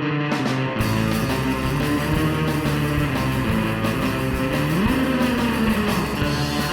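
Background music led by guitar. Under a second in, it fills out with low bass and a brighter top end.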